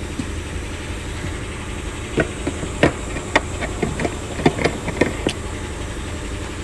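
Small metal gas chargers (whipped-cream canisters) clinking and knocking against metal as they are drawn out with a magnet: about ten sharp clinks over a few seconds, over a steady low hum. These loose canisters are what made the car's noise.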